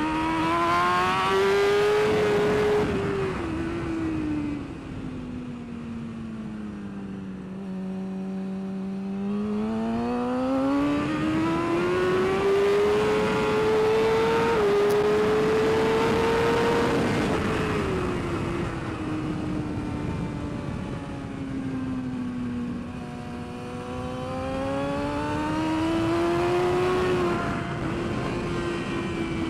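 BMW S1000RR inline-four race engine heard onboard at speed, its note sinking for several seconds as the rider holds a corner, then climbing hard again, with three quick upshifts heard as short drops in pitch. Wind rush sounds throughout.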